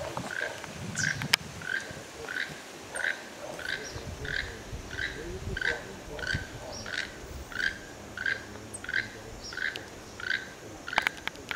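Keel-billed toucan calling: a dry, frog-like croak repeated at a steady pace, about three calls every two seconds. A few sharp clicks come about a second in and near the end.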